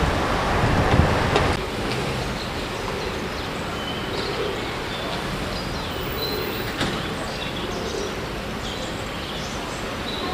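Steady outdoor background noise, with a louder low rumble for the first second and a half and scattered faint high chirps.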